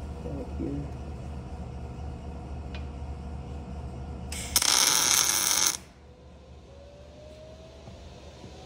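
An electric welder tacking a heim joint onto a steering shaft with one spot weld: a single crackling burst of the arc about four seconds in, lasting about a second and a half and cutting off sharply. It is a tack to fix the joint's position, not a finished weld.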